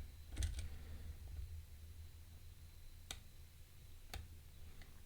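Lock pick clicking against the pins inside an Abus P12R dimple lock: a few sharp, widely spaced ticks, with a steady low hum underneath.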